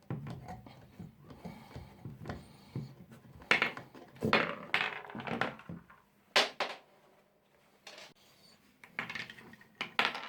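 Small metal parts and ball bearings being worked loose and handled on a wooden base: irregular clicks, knocks and rattles, busiest around the middle and again near the end.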